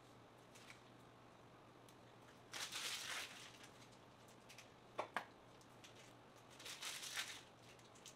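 Disposable plastic piping bag crinkling in two short spells as it is squeezed to pipe sticky biscuit dough, with a couple of faint clicks in between, over a low steady hum.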